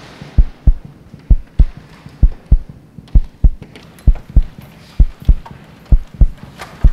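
A slow, steady heartbeat: low double thumps, lub-dub, about one pair a second.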